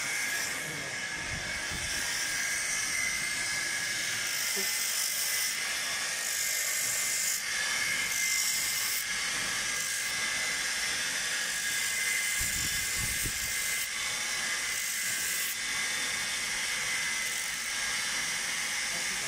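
Electric motor spinning an abrasive sanding wheel with a steady whine and hiss, while a rosewood walking-stick handle is pressed against it in several passes of a second or two, each adding a brighter, louder hiss.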